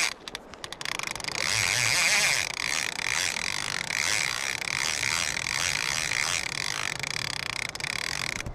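Fly reel's click-and-pawl drag ratcheting as a hooked salmon pulls line off: a few separate clicks at first, then about a second in a fast continuous buzz that swells and eases, stopping just before the end.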